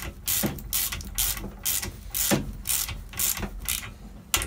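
Ratchet wrench clicking in quick, uneven back-and-forth strokes as a nut is tightened down on the strut and coil spring assembly.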